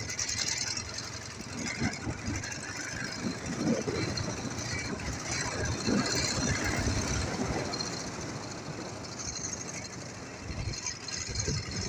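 Ural motorcycle's flat-twin engine running, with uneven knocks and rattles throughout.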